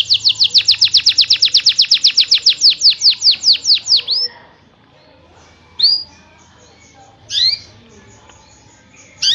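Domestic canary singing a rolling trill of rapid, evenly repeated falling notes, about ten a second, which slows slightly and stops about four seconds in. It is followed by three single rising chirps spaced over a second apart.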